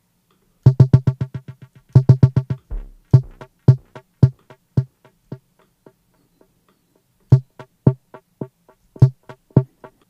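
Sampled metronome click from an Arturia Drumbrute Impact analog drum machine, pitched down two octaves and played in a sampler through distortion and delay: short, low, pitched hits, each trailed by quick fading echoes. Two fast bursts of repeats open it, then single hits spaced apart, a pause of about two seconds, and more hits near the end.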